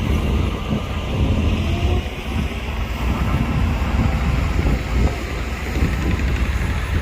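Heavy diesel engine of earthmoving machinery running steadily, a low rumble with no pauses.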